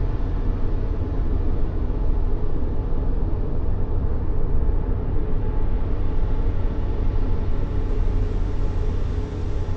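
Steady white-noise track for soothing a baby: an even, unbroken hiss, deep and heavy in the low end and thin in the highs.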